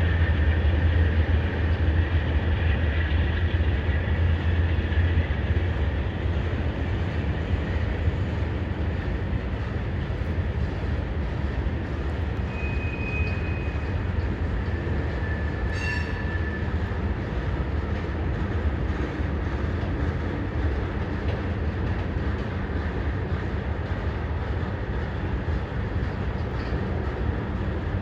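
CSX freight train rolling by: a steady low rumble that eases slightly after the first few seconds, with a couple of brief high-pitched tones and a click about halfway through.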